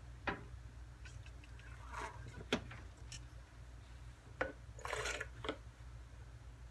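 Quiet room with a few faint, sharp clicks and two short soft rustles, about two and five seconds in.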